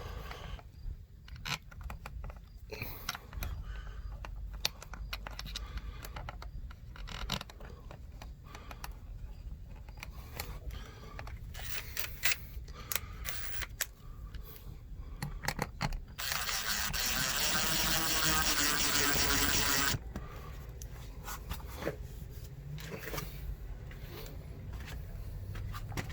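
Scattered handling clicks and light scraping, then a power drill runs steadily for about four seconds a little past halfway, starting and stopping sharply.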